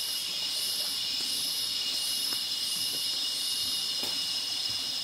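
Forest insects buzzing steadily at a high pitch, with a second, even higher insect call pulsing about once every 0.7 seconds until about four seconds in. A few faint ticks sound now and then.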